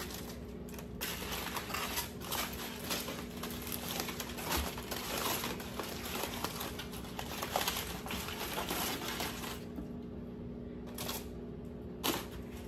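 Crinkling and small clicks of baked potatoes being picked up, squeezed and set down one after another, over a steady low hum.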